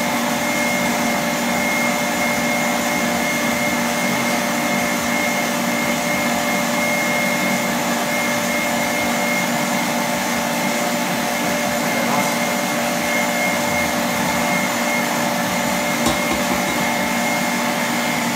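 Electric stand mixer running steadily on high speed, its whisk beating egg yolks as hot sugar syrup is poured in.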